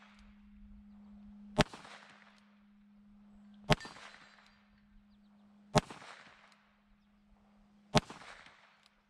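Four shots from a Taurus 605 snub-nose revolver with a 2-inch barrel, fired single action with .38 Special 158-grain cast semi-wadcutter loads, about two seconds apart, each with a short ring after it.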